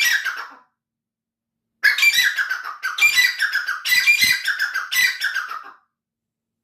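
Songbird singing: a short burst of chirps at the start, then after a pause of about a second a run of rapid, repeated chirping and warbling phrases for about four seconds.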